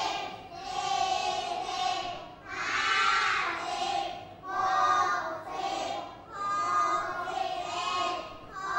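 A class of young children counting aloud in Thai in unison, chanting one drawn-out number about every two seconds.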